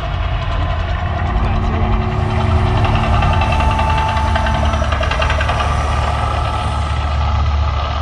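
Deep, steady rumbling with faint music-like tones over it, typical of the Mirage volcano show's sound effects and soundtrack played through loudspeakers.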